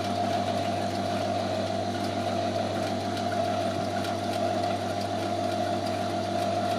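The drive mechanism of an animated model bakery running, moving its wooden baker figures: a steady mechanical hum.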